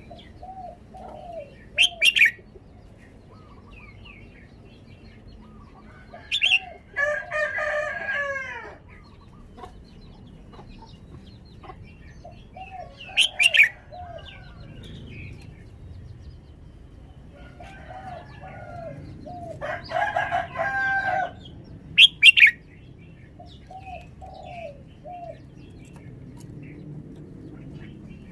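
Red-whiskered bulbul singing: sharp, loud short notes every several seconds and two longer warbled phrases, with soft groups of low repeated notes in between.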